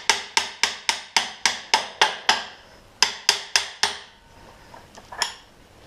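Hammer striking metal in quick, even blows, about four a second, on motorcycle rear-end parts. There is a short pause partway through, then four more blows and a single last strike.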